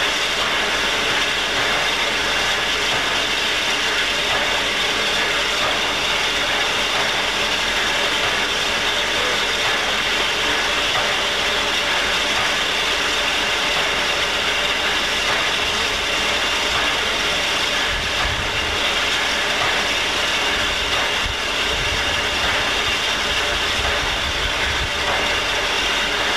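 Standing 2-6-2 steam locomotive hissing steadily as steam escapes, with no chuffing. After about eighteen seconds a low rumble joins.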